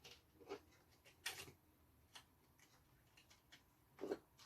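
Faint, scattered small clicks and taps of a laptop hard drive being worked loose from its bay by hand, the loudest about a second in and again near the end.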